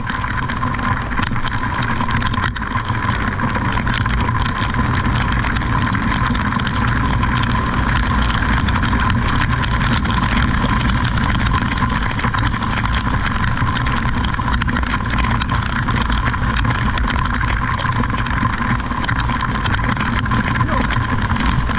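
A vehicle engine running steadily, a constant low rumble with a thin, steady whine over it.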